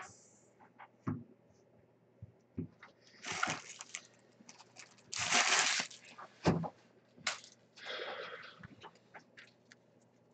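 Trading card packs and cards being handled: three short rustling bursts, the loudest about halfway through, with small clicks in between.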